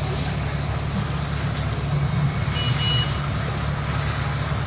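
Tractor engine idling steadily, with one short high-pitched beep about two and a half seconds in.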